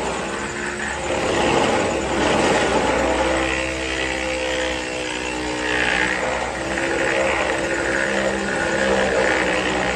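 Power sander running on a steel truck fender. The motor holds a steady pitch while a rasping sanding noise swells and fades every second or two as the pad is worked over the panel.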